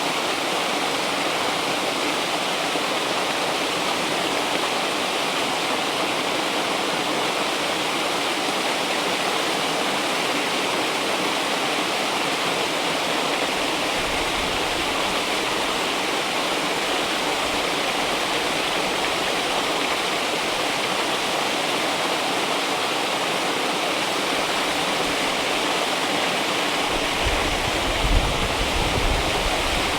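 River water rushing steadily, an even hiss of flowing water. Near the end a brief low rumble with a few small bumps joins it.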